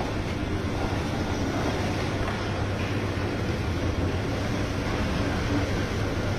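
Motor-driven rotary oil mill (ghani) running, its pestle turning in a stone mortar full of groundnuts as they are crushed for oil. The sound is a steady mechanical rumble with a low hum.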